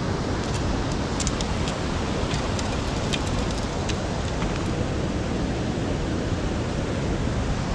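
Steady rushing of river water, an even hiss with a few faint ticks mixed in.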